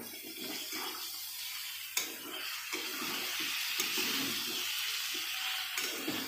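Chopped vegetables frying in hot oil in a kadai, a steady sizzle, while a spatula stirs and turns them against the pan, with a couple of sharp clicks.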